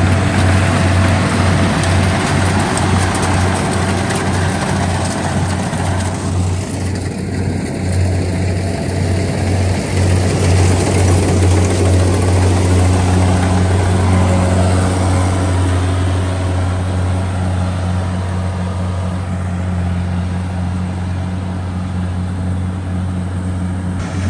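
Rice combine harvester running steadily: a loud, steady low engine hum under a dense rushing noise.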